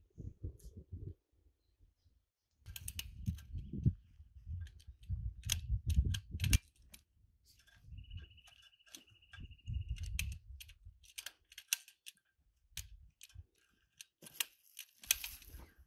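Hand pruning shears snipping grapevine canes: a string of sharp, irregular clicks. Low rumbling bursts of wind on the microphone run under them.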